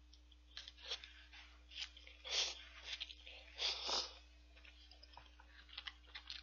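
Ramen noodles being slurped and chewed: several short, noisy slurps in the first four seconds, the loudest two about halfway through, then a few small mouth clicks near the end.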